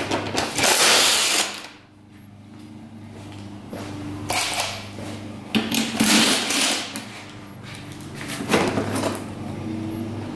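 Cordless power driver running in about four short bursts, backing out the seat bolts on a motorcycle.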